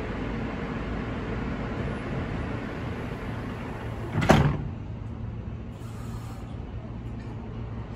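R160-series subway car doors sliding shut and closing with a single loud thud a little over four seconds in, over the steady hum of the standing train.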